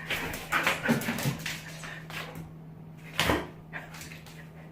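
A dog moving about and snuffling in the first second or so, then a single sharp knock about three seconds in, over a faint steady low hum.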